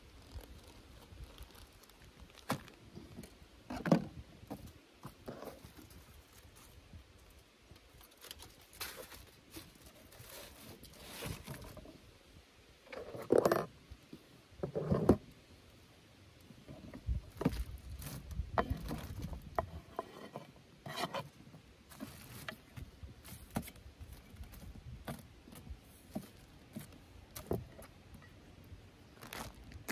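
Food-prep handling noise: scattered clicks, knocks and rustling of a plastic bag and aluminium foil, with a few louder knocks. Near the end, chopped vegetables are slid off a wooden cutting board onto the foil.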